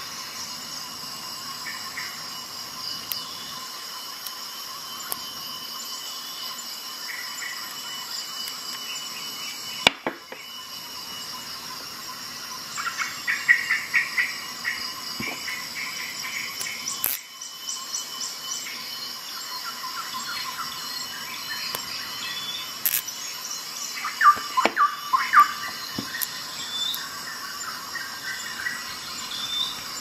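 Small bit ratchet turning a tiny screw in a Leatherman Tool Adapter: two spells of fine clicking and scraping, about 13 seconds in and again near 25 seconds, with a few single sharp clicks, over a steady high-pitched whine.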